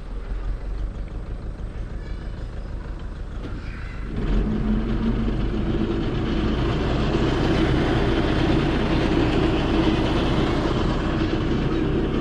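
Septic-tank pumping truck's engine running just after start-up. It steps up to a louder, steady run about four seconds in.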